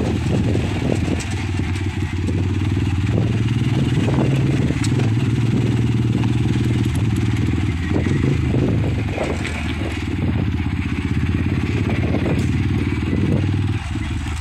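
Motorcycle engine running steadily at low speed on a rough dirt road, with scattered rattles and clicks from the bumpy ride.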